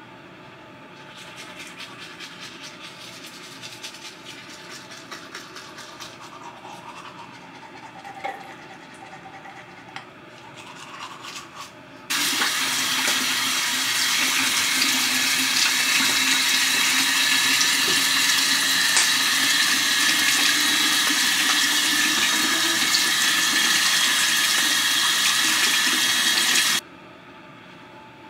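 Toothbrush scrubbing faintly, then about twelve seconds in a bathroom tap is turned on and water runs steadily into the sink for about fifteen seconds before it is shut off suddenly.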